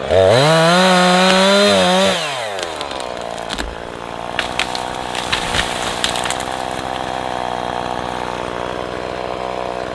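Husqvarna 340e two-stroke chainsaw revved hard, held at high revs for about two seconds, then falling back and running steadily at a lower speed.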